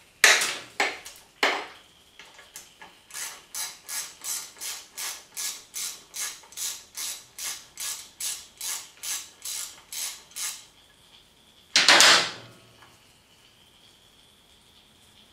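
Socket ratchet wrench working a bolt on a dirt bike engine's crankcase, clicking evenly about two to three times a second for several seconds after a few separate sharp clicks. A single louder clatter comes about twelve seconds in.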